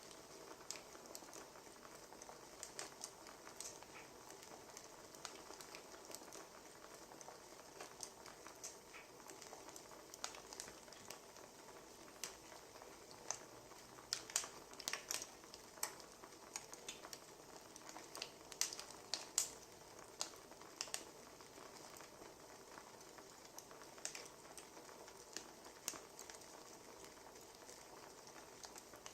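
Wood fire crackling: a soft steady hiss with irregular sharp pops and snaps, busier and louder for a few seconds in the middle.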